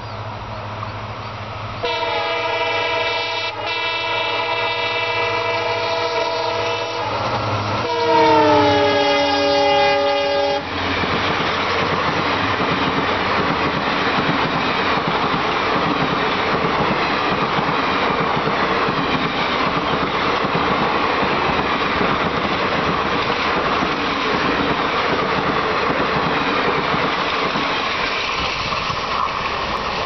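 EMD diesel locomotive's multi-note air horn sounding twice as the train approaches at speed: a steady blast of about five seconds, then a louder one whose pitch drops as the locomotive passes. After that, the steady rush and wheel noise of passenger coaches going by on the rails.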